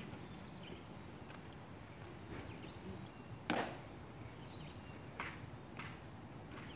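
Sharp, hard clicks from the Tomb Guard soldiers' drill on the stone plaza, one at a time and unevenly spaced, the loudest about halfway through with a short ring after it. Under them is the faint hush of a silent crowd.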